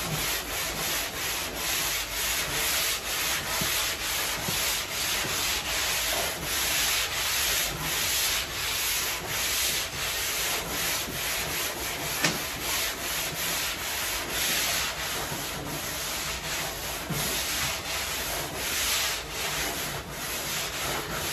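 Foam glass sanding block ("fart rock") scraping back and forth over body filler in steady, rhythmic strokes, a loud scratchy rasp. A single sharp click about twelve seconds in.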